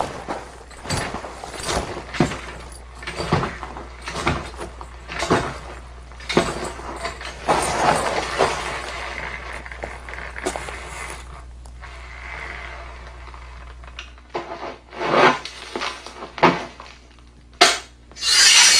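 Foley sound effects for film: an irregular run of sharp knocks and crashes, with a denser clattering stretch midway and the loudest hits near the end.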